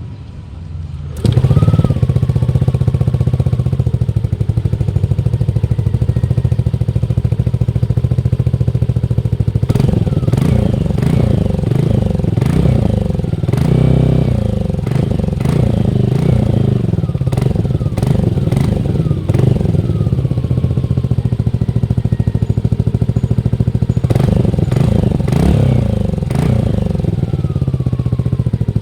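Yamaha Aerox 155 scooter's single-cylinder engine breathing through an Akrapovic slip-on exhaust: it starts about a second in and idles steadily, then is revved in repeated short blips that rise and fall in pitch, from about ten seconds in and again near the end.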